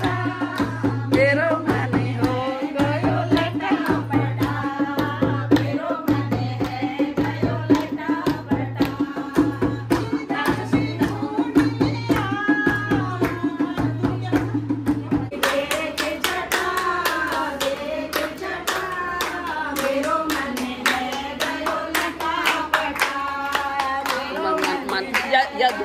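A group of women singing a devotional bhajan together, accompanied by a dholak drum and rhythmic hand-clapping.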